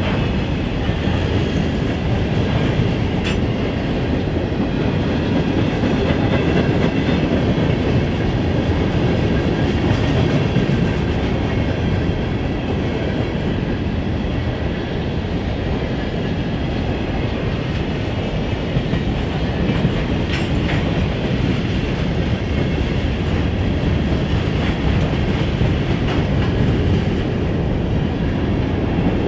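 Empty open-top stone hopper cars of a freight train rolling steadily past, with a few sharp clanks.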